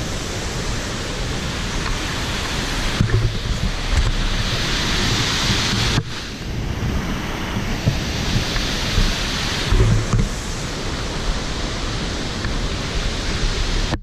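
Waterfall rushing steadily as a dense, even noise, with wind buffeting the microphone in gusts.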